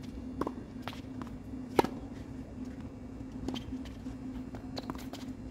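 Sharp knocks of a tennis ball bouncing on the hard court and tapped with a racket, about half a dozen, the loudest about two seconds in, over a steady low hum.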